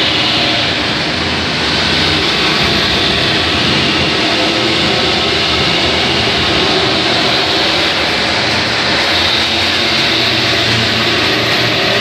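Manual keg washer running, its pump humming under a steady, loud rush of water spraying inside the inverted cylinders.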